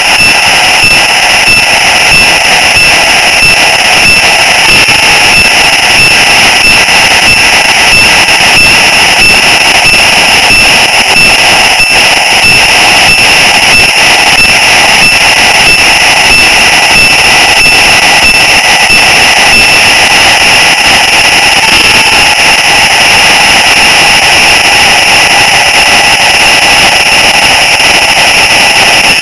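Model train's electric motor and gearing whining steadily close to the onboard camera's microphone, with a regular clicking about twice a second from the wheels running on the track. The highest tone of the whine drops away about two-thirds of the way through.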